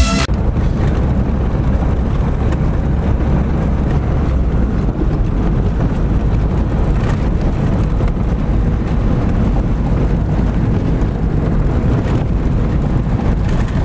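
Vehicle engine and tyre noise heard from inside the cab while driving along a snow-covered dirt track: a steady low rumble.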